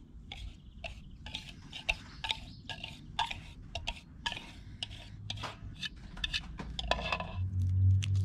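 A kitchen utensil scraping and tapping against a mixing bowl as thick brownie batter is scraped out into a small cast-iron pan: a quick, irregular run of short scrapes and clicks. A low steady hum comes in near the end.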